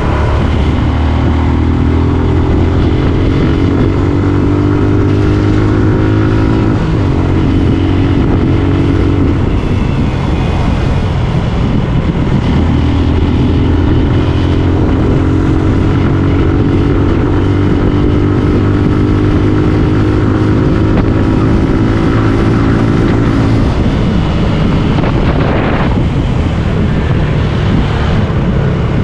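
Motorcycle engine running under way, its pitch climbing slowly as the bike speeds up, dropping about nine seconds in, then climbing again and dropping near the end, over a steady low rumble.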